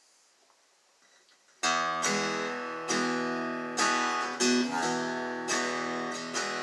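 Acoustic guitar strumming a song's intro. After near silence, the first chord comes in suddenly about a second and a half in, and fresh strums follow roughly once a second.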